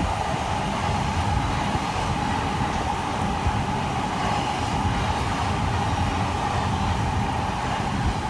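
Sotetsu 12000 series electric train running on the track: a steady rumble of wheels on rail with a steady mid-pitched tone over it.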